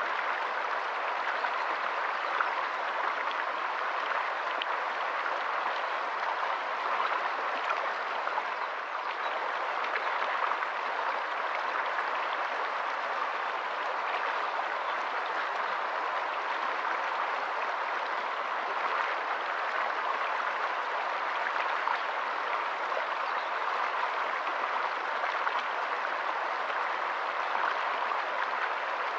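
Shallow stream running over rocks in small riffles: a steady rush of water, even throughout, with no deep rumble.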